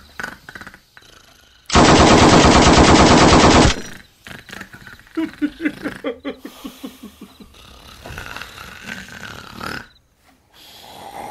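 An exaggerated, very loud rattling snore lasting about two seconds, made of rapid even pulses. A run of quieter, pitched snorting pulses follows a few seconds later.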